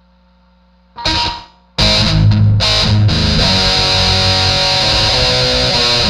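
Distorted electric guitar through an amplifier: a faint amp hum, then a short chord about a second in that dies away, then loud continuous playing from just under two seconds in.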